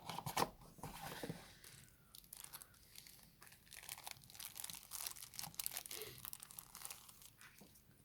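Plastic wrapping crinkling and tearing as it is peeled off a new smartphone, a run of irregular crackles and rustles.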